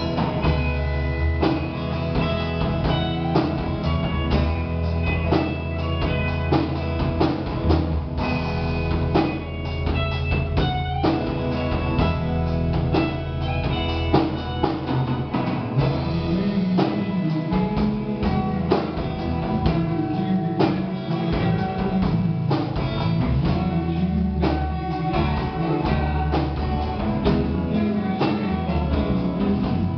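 A rock band playing, with drum kit, electric guitar and bass, the drums steady throughout.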